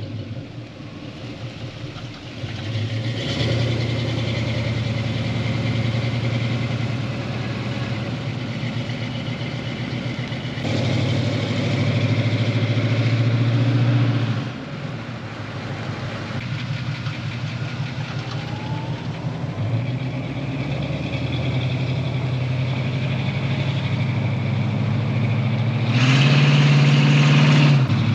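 A 1981 Chevrolet Camaro's engine running steadily as the car drives. Its sound jumps suddenly louder about three seconds in, again from about eleven to fourteen seconds, and near the end.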